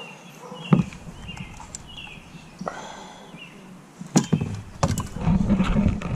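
A black glass bottle set down on a kayak hull with a thump about a second in, then more knocks and rubbing as it and the grabber are handled near the end, with birds chirping throughout.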